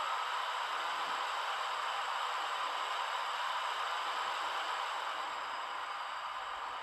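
Oil-cooler fan sound of the ESU sound decoder in a Märklin H0 Crocodile (Ce 6/8) model locomotive, played through the locomotive's small speaker: a steady rushing fan whoosh that eases off slightly near the end.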